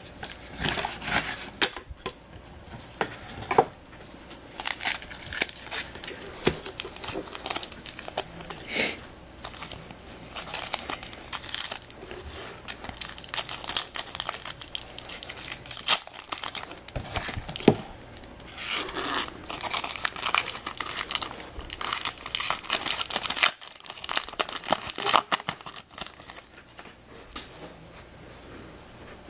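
Foil wrappers of hockey card packs being torn open and crinkled by hand, in irregular bursts of crackling and tearing, with the trading cards handled in between.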